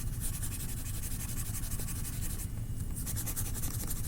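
Quick back-and-forth colouring strokes of a drawing tool on paper, shading in a blue sky, with a short pause about two and a half seconds in before a few more strokes.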